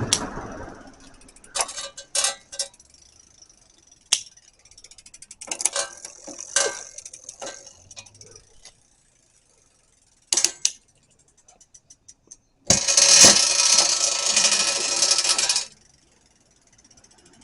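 Some mechanism making scattered clicks and short rattles, then about three seconds of loud, dense rattling about two-thirds of the way through: the abnormal noise being recorded.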